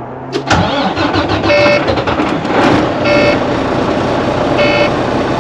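Semi truck's diesel engine cranking on its starter from about half a second in, not yet catching. A short dashboard warning chime repeats about every second and a half over it.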